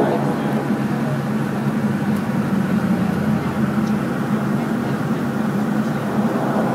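Saab 340B's turboprop engines and propellers droning steadily at taxi power, heard from inside the cabin. The higher tones fade right at the start, leaving a steady low hum.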